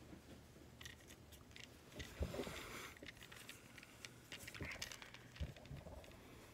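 Faint rustling and light clicks of a hand handling a stopwatch close to the microphone, with a short breathy sound about two seconds in.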